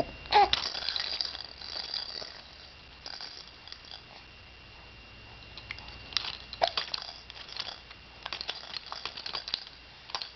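A baby mouthing and chewing a toy: scattered crinkling and rattling clicks in uneven clusters, with a short squeak about half a second in and another past the middle.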